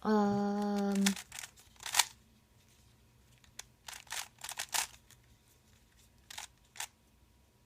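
A short steady hummed "hmm" lasting about a second, followed by scattered plastic clicks and snaps of a Rubik's Cube's layers being turned, in small clusters.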